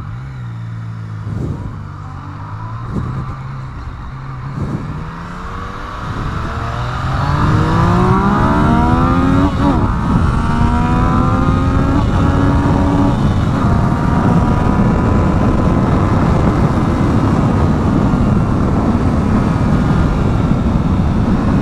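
Yamaha FZ-09 inline-three motorcycle engine running at low revs, then accelerating hard for a speed test: the pitch climbs steeply, drops at a shift into second about ten seconds in, and climbs again. After that, loud wind noise at speed drowns out most of the engine.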